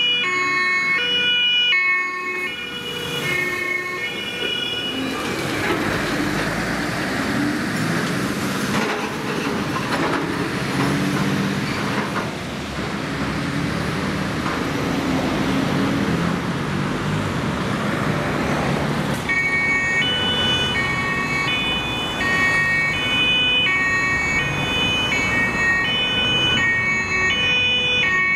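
Two-tone German emergency siren (Martinshorn) alternating between its two pitches on THW trucks running with blue lights. For a long middle stretch the siren gives way to the loud diesel engines and road noise of heavy trucks passing close by, then the two-tone siren returns near the end.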